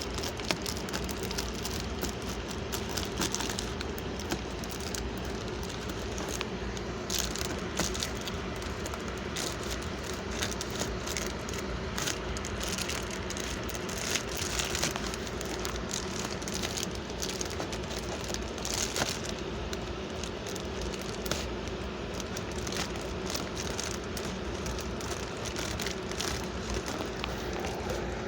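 Crinkling and rustling of a mailer envelope and its packaging being opened and handled: scattered short crackles over a steady background hum.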